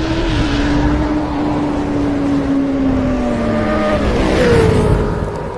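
Motorcycle engine sound effect running high in revs, its pitch sinking slowly, with a new, higher note gliding down about four and a half seconds in.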